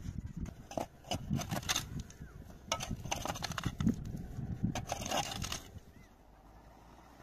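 Knocks and scrapes of work on stony ground, a shovel digging and gear being handled, in irregular clusters; goes quieter about six seconds in.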